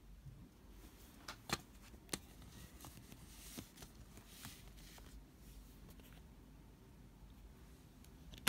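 Faint handling of a plastic CD jewel case and its card insert: a few sharp clicks about one and a half to two seconds in, light rustling, and one louder sharp click near the end.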